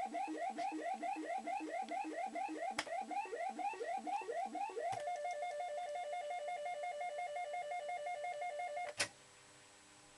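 Maygay Moon Bug fruit machine playing its electronic sound effects: a quick run of short rising bleeps, about four a second, then a steady warbling two-note tone for about four seconds. The tone cuts off with a sharp click.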